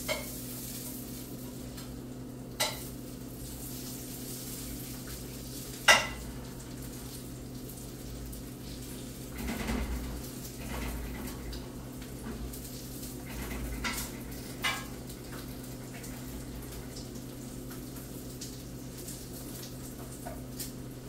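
A spatula clicking and knocking against a frying pan about five times, the loudest knock about six seconds in, over the faint sizzle of bacon frying and a steady low hum.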